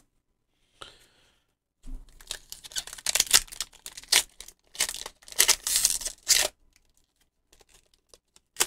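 Foil wrapper of a Pokémon booster pack being torn open and crinkled by hand: a run of loud crackling tears lasting about four seconds, then a single sharp click near the end.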